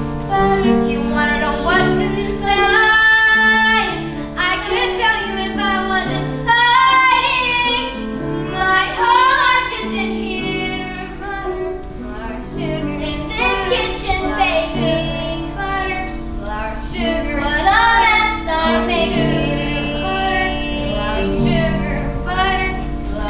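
Young girls singing a slow song over a sustained instrumental accompaniment.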